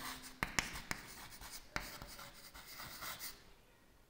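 Chalk writing on a chalkboard: quiet scratching strokes with a few sharp taps of the chalk against the board, stopping shortly before the end.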